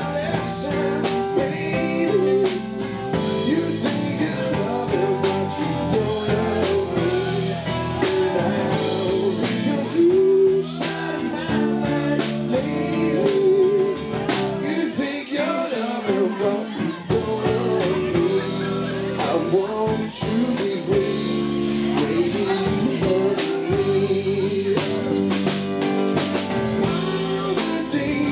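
Live band playing an upbeat pop-rock song with drum kit, electric guitars and a singer's voice, loud and continuous.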